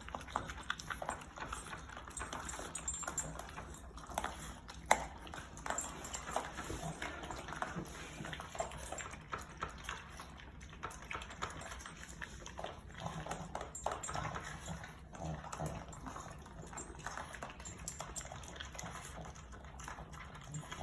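French bulldogs eating raw ground meat, a run of irregular wet chewing, smacking and lapping sounds, with a single sharp knock about five seconds in.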